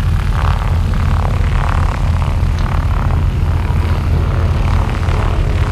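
Propeller airplane's piston engines running close by with a steady low rumble.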